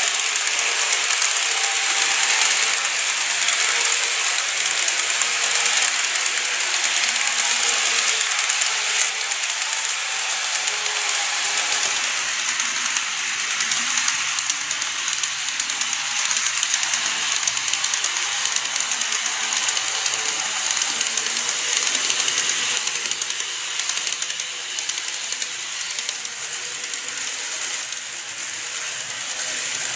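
Seibu 30000 and 9000 series model electric trains running on the layout track: a steady rapid clicking of wheels and gears with a hiss, and a faint hum in the first half.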